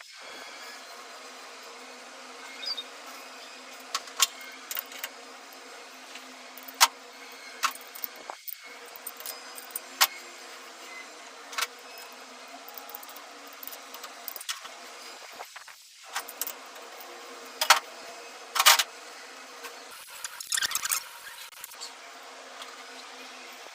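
Metal tools clinking and tapping at irregular intervals over a steady hiss, with a few sharper, louder clicks along the way and a quick cluster of them near the end.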